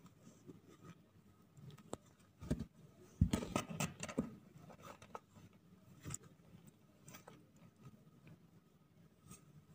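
Faint scuffling and scratching as two-week-old kittens crawl over each other on a blanket in a cardboard box, with a cluster of louder bumps and rustles about three to four seconds in. No mewing.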